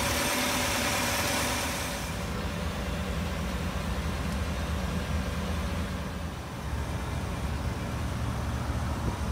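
2016 GMC Sierra 1500 Denali's V8 engine idling with a steady low rumble. A higher hiss over it drops away about two seconds in.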